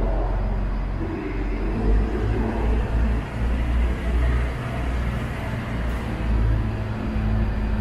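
Red DB Class 642 Desiro diesel multiple unit moving along the platform, its diesel engines running with a steady low rumble that swells and eases a little.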